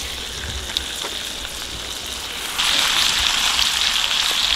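Panfish fillets sizzling in melted butter in a frying pan on a propane camp stove, a steady hiss that gets louder about two and a half seconds in.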